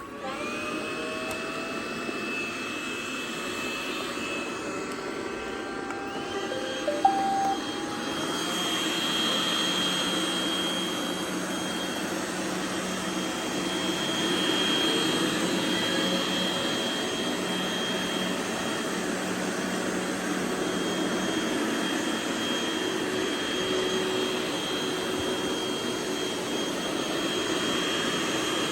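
Several robot vacuum cleaners running together: their motors spin up with rising whines in the first seconds and again about six seconds in, then settle into a steady layered whine and hum. A short electronic beep sounds about seven seconds in.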